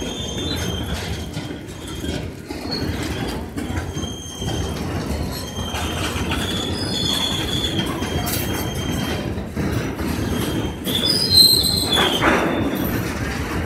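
Freight train of oil tank wagons rolling past close by: a steady rumble of steel wheels on rail with scattered clicks, and high wheel squeals coming and going, the loudest about eleven seconds in.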